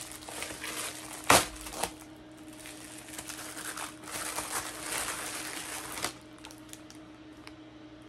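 Plastic bubble mailer being torn open and crinkled as its contents are pulled out, with a sharp snap a little over a second in and a smaller one just after. The crinkling dies down about six seconds in.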